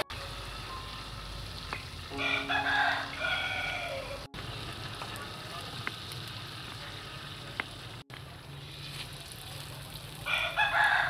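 Egg-dipped bread frying in butter in a wok, a steady sizzle, while a rooster crows twice: once about two seconds in, ending in a falling note, and again near the end.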